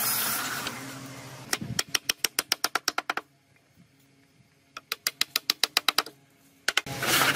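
A small wooden mallet tapping wooden dowels into drilled holes in a board, in two quick runs of light knocks about eight a second with a quiet pause between. It opens with a short rasp of a thin saw trimming a dowel flush, and a loud rushing noise starts near the end.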